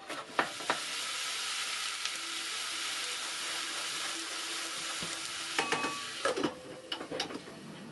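Food sizzling in a pan on a galley stove, a steady hiss that fades after about five seconds. Knife chops on a wooden cutting board come near the start, and a cluster of knocks and pot-lid clatter comes near the end.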